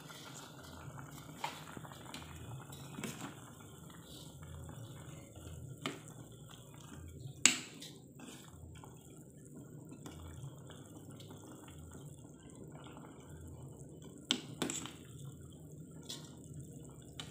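Pot of vegetable soup in coconut milk bubbling at a full boil, with a metal ladle stirring in it and knocking against the pot a few times; the sharpest knock comes about halfway through, and two more come close together near the end.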